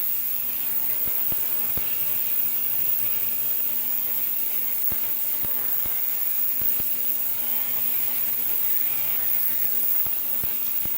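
Ultrasonic cleaner running with a steady buzzing hum and a high hiss. A handful of light metallic clicks come from a small screwdriver and small parts being handled.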